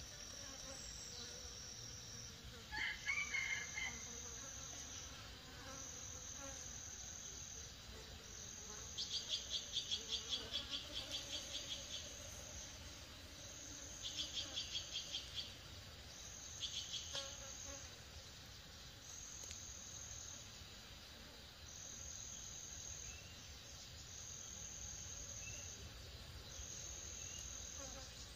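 Forest insects trilling: a high, even trill repeats in phrases of about a second and a half with short gaps between. Louder runs of rapid chirping break in three times in the middle, and a brief louder call comes about three seconds in.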